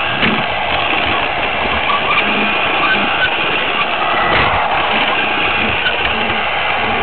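A battery-powered Duplo toy train running, its small electric motor and gears whirring steadily with the wheels rattling on the plastic track, heard close up from on board the train.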